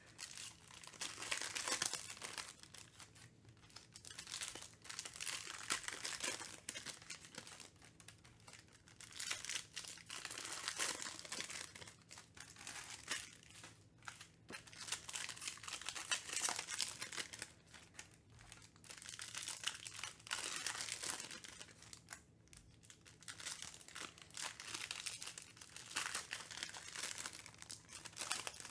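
Foil trading-card pack wrappers crinkling and tearing as packs are ripped open by hand, in repeated bursts with short pauses between them.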